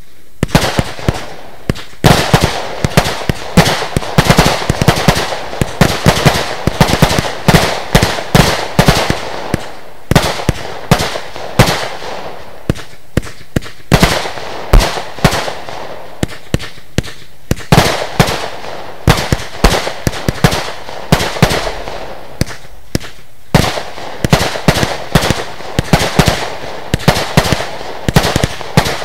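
Lesli Dezemberfest 512-shot, 20 mm firework compound firing in quick succession: a steady stream of launch thumps and small aerial bursts, several shots a second, with short pauses every few seconds.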